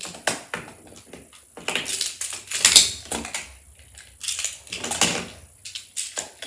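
Plastic magnetic building tiles clicking and clattering in irregular bursts as they are handled and snapped together.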